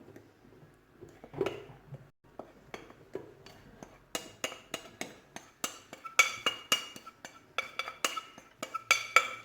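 A spoon and bowls clinking while dry flour mix is emptied into a kneading-machine bowl: a few soft taps and scrapes, then from about four seconds in a quick run of sharp, ringing clinks.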